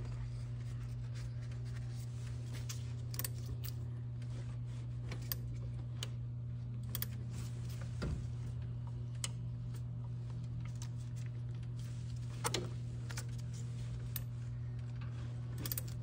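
Sparse, faint metallic clicks of a double-row timing chain being fed slowly by hand over its sprockets while the crankshaft is turned, over a steady low hum.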